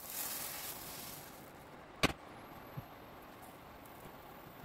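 Zucchini crepe batter sizzling in a buttered non-stick frying pan just after being poured, the hiss fading over the first second or so. A sharp click comes about two seconds in, followed by a faint tap.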